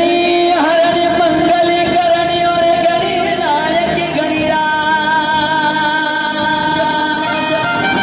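Live devotional song played through a sound system: a voice holding long, sliding, wavering melody notes over instrumental accompaniment.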